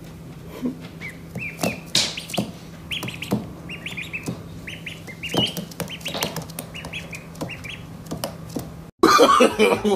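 Birds chirping: many short high-pitched calls in quick succession, with a few clicks among them. They stop abruptly near the end, where something louder takes over.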